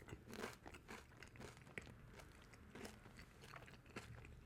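Faint close-up chewing of a mouthful of toasted bread with fried egg and cream cheese: soft, irregular crunches and small wet clicks of the mouth.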